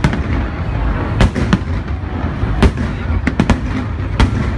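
Aerial firework shells bursting in quick, irregular succession, sharp bangs several times a second at the busiest moments, over a steady low rumble.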